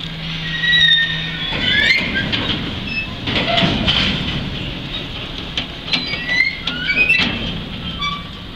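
Train of railway tank wagons rolling slowly, with repeated short high squeals, some sliding up in pitch, and sharp metallic clanks over a steady rumble.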